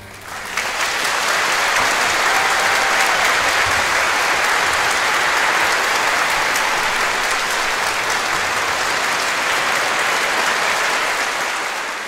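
Large concert-hall audience applauding: dense, steady clapping that swells in within the first second after the orchestra's last note.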